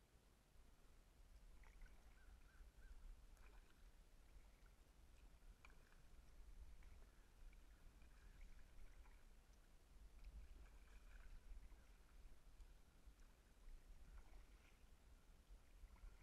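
Near silence, muffled by a camera's waterproof housing: faint knocks and splashes of a kayak paddle stroking through the water, over a low rumble.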